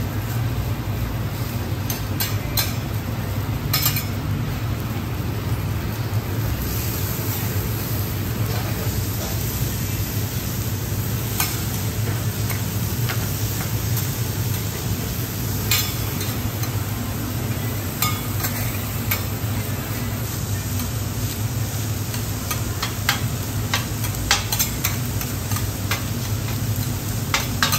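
Food sizzling on a flat steel teppanyaki griddle while two metal spatulas scrape and chop through it. Frequent sharp clicks of spatula on steel sound over a steady low hum.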